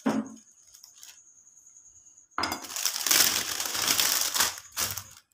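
A thin plastic sheet crinkling as it is handled and lifted off freshly rolled biscuit dough: a loud rustle that starts a little over two seconds in and lasts about two and a half seconds.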